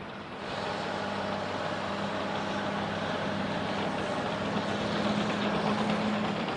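Caterpillar crawler bulldozer's diesel engine running under load as it pushes a pile of soil. It comes in about half a second in as a steady low engine note and grows louder toward the end.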